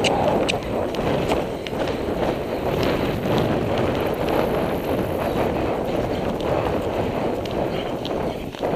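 Wind buffeting a helmet-mounted microphone, mixed with a horse's hoofbeats on grass as it travels across the cross-country course.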